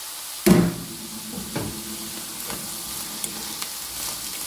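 Chopped mushrooms and walnuts sizzling steadily in a frying pan, with one ringing knock about half a second in and lighter clicks of a spatula stirring them.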